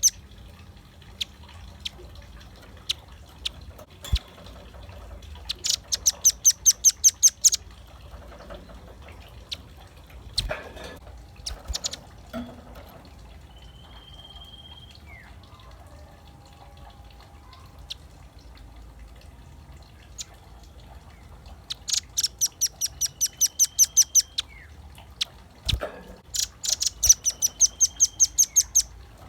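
Velvet-fronted nuthatch singing: fast, high, chattering trills of evenly repeated notes, each burst lasting about two seconds, one about six seconds in and two near the end, with scattered single chips and short thin whistles between.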